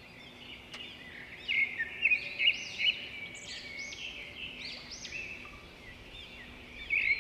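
Several birds chirping and calling in quick, overlapping phrases of short arching notes, louder from about a second and a half in, over a faint steady hum.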